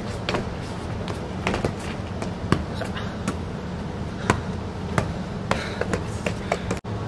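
A freestyle football being juggled: irregular light knocks of the ball against feet and legs, over a steady low hum.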